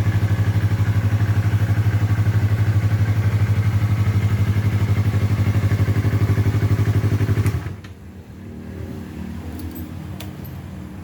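2022 Yamaha R3's parallel-twin engine idling steadily through an Austin Racing slip-on exhaust, with an even pulsing beat. The engine sound cuts off suddenly about seven and a half seconds in, leaving faint background noise and a few light ticks.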